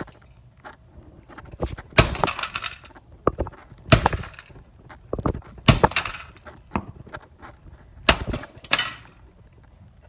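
Hammer blows smashing the circuit board of a DirecTV satellite receiver on concrete: four hard strikes about two seconds apart, each with a short rattle of breaking parts, and lighter knocks in between.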